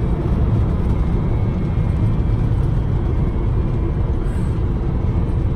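Datsun 260Z's L26 straight-six on triple Mikuni carburettors running steadily while the car is driven, mixed with road and wind noise.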